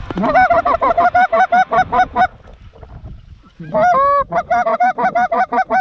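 Canada goose call blown close by in fast runs of clucks, about six honks a second, in two runs with a pause between; the second run opens with one longer, drawn-out honk. It is hunters calling to a flock of geese flying toward the decoys.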